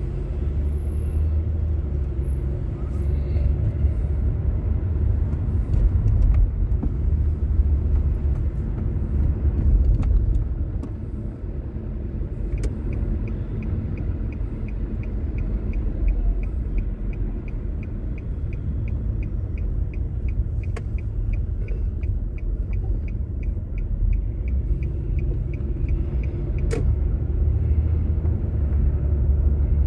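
Car engine and road rumble heard from inside the cabin while driving. Through the middle stretch a light regular ticking at about three a second runs for several seconds, then stops.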